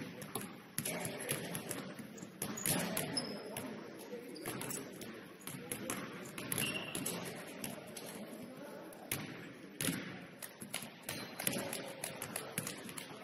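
A basketball bouncing on a hardwood gym floor: a string of irregular thuds, with voices in the background.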